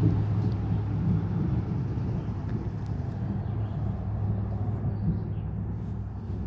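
Thunder rolling in one long continuous low rumble, easing slightly toward the end.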